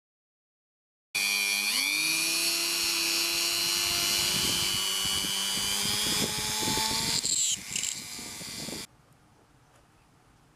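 Handheld rotary tool with a small drill bit starting up with a rising whine, then running steadily at high speed as it drills into a wooden lure body. The whine wavers near the end and cuts off suddenly, leaving only faint background.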